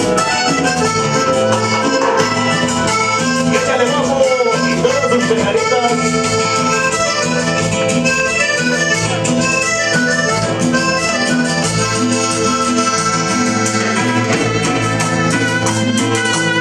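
Live cumbia band playing, an accordion carrying the melody over a repeating bass line and steady percussion.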